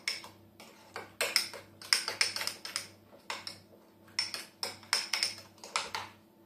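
Spoon stirring a thick Greek-yogurt-and-mayonnaise dip in a small ceramic bowl, clinking and scraping against the bowl in quick runs of taps with short pauses between.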